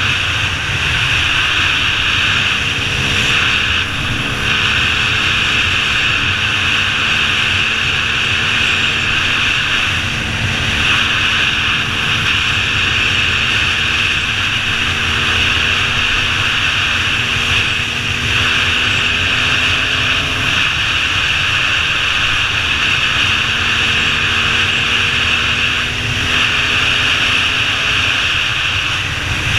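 Dirt bike engine running at a steady cruising speed on a gravel track, its note holding nearly level with a few small shifts in pitch, under heavy, constant wind rush on the helmet-mounted microphone.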